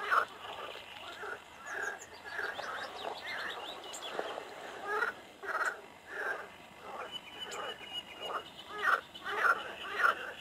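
Frogs croaking in a chorus, calls repeating and overlapping throughout, with a bird's quick series of high notes about two to three seconds in.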